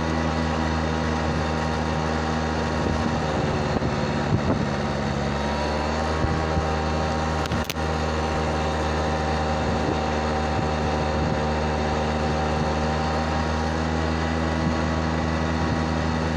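Small motorbike engine running steadily under way, its pitch rising a little about six seconds in. One sharp click near the eight-second mark.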